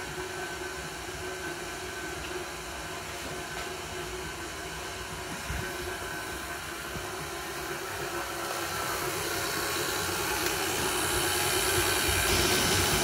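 KitchenAid Artisan stand mixer running at a steady speed, its paddle beating cold cubed butter into flour, sugar and ground almond. A steady motor hum that grows louder near the end.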